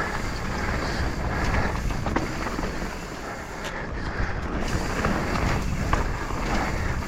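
Mountain bike rolling fast down a dirt singletrack: steady tyre and wind noise, with a few sharp knocks and rattles from the bike over bumps.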